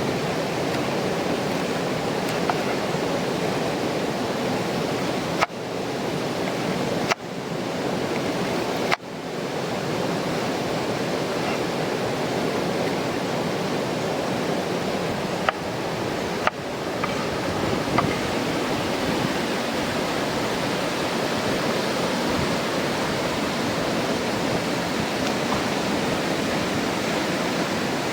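Mountain river rushing steadily and loudly. A few sharp knocks cut through it; after several of them the rushing briefly drops away and swells back.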